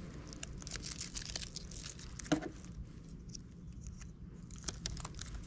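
Pressure tape being pulled off its roll and wrapped around a cannon plug connector, with irregular crackling, crinkling and small tearing sounds and one sharper tick about two seconds in.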